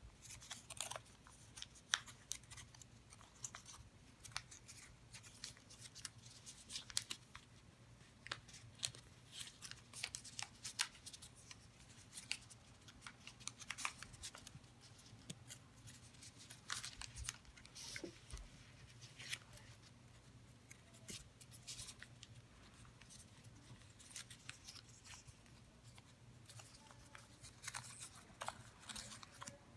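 Faint crinkling and rustling of origami paper being folded and creased by hand, in irregular sharp crackles.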